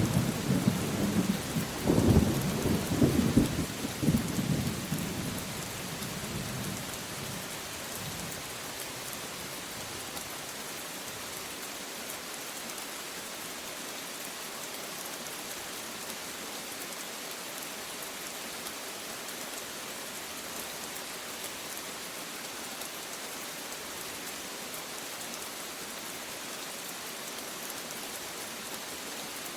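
Steady rain falling, with rolls of thunder rumbling in the first few seconds and fading away by about eight seconds in, leaving only the even hiss of the rain.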